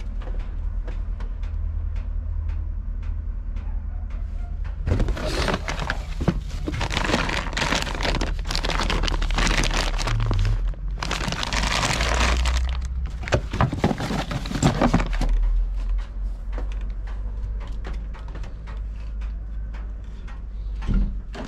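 Foil bag of dry cat food crinkling and rustling as it is handled, in loud bursts from about five seconds in to about fifteen, with many small crackles, over a low steady rumble.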